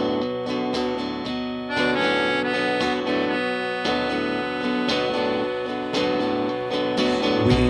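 Instrumental music: sustained chords with plucked or struck notes on a regular beat.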